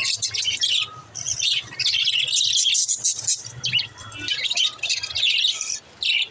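Budgerigars chattering and warbling: a continuous stream of fast, high chirps with brief pauses.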